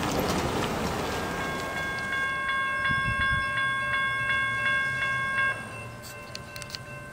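Railroad grade-crossing warning bell ringing with gates down and lights flashing, striking about twice a second, after a second or so of road traffic noise. The bell drops sharply in level near the end.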